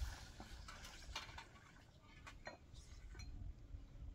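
Faint, scattered light clinks and taps of hard objects being handled, a few each second.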